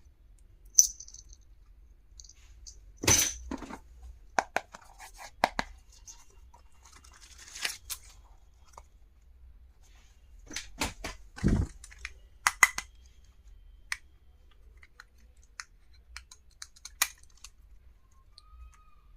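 Stationery and its packaging being handled during an unboxing: scattered clicks and taps of small items, a short rustle about three seconds in, and a dull thump about eleven and a half seconds in.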